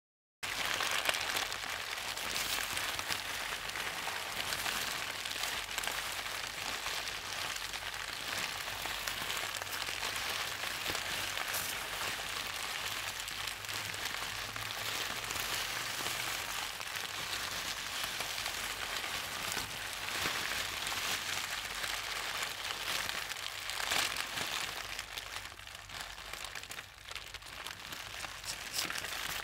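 A steady crackling hiss that cuts in suddenly about half a second in after dead silence and thins out near the end.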